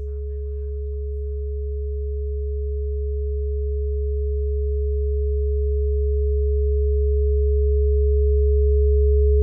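A steady electronic drone of two pure tones, one low and one mid-pitched, growing steadily louder.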